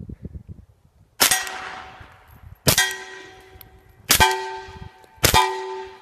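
Four suppressed pistol shots, fired one to one and a half seconds apart. Each gives a sharp report with a ringing, metallic clang that fades over about a second, typical of rounds hitting steel targets.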